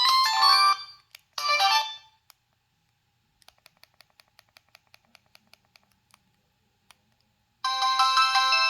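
Preloaded ringtones played through a Samsung T249 cell phone's speaker. An electronic ringtone tune cuts off about a second in and a short snatch of another follows. After a quick run of faint, evenly spaced clicks, a new ringtone begins near the end.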